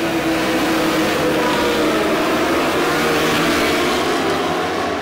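A pack of 1000 cc superbikes accelerating hard away from a race start, several engines revving at once with pitches rising and overlapping.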